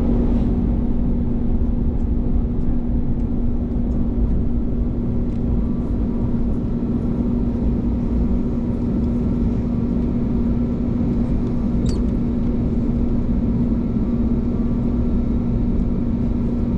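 Steady cabin drone inside an Airbus A321neo airliner on the ground before takeoff, a constant low hum over a rumble.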